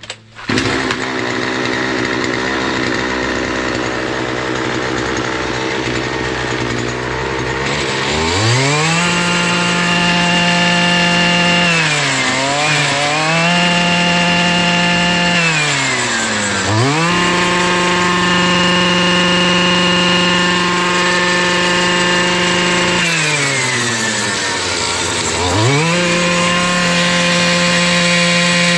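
Husqvarna brush cutter's two-stroke engine idling for several seconds, then revved to full throttle and let back down four times, holding a steady high pitch at each run-up. It picks up cleanly without bogging, its carburettor screen and diaphragms just cleaned and the muffler's exhaust hole enlarged.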